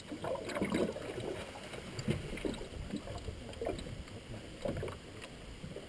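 Water sloshing and splashing against the side of a small aluminum boat, with irregular small knocks.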